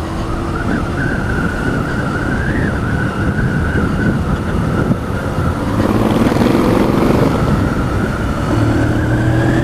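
Motorcycle on the move: steady engine drone and wind rush, with a thin whine that edges up in pitch near the end.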